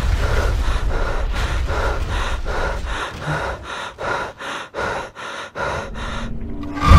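A person panting fast and hard, about two to three breaths a second, the breaths growing sharper and more separated. A low rumble underneath fades out about halfway through, and a loud rumble cuts in suddenly at the very end.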